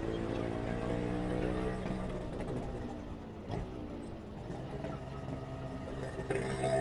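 Motorcycle engine and road noise heard from the riding bike, the engine's pitch falling and then rising again as it slows and speeds up in traffic. It gets louder near the end.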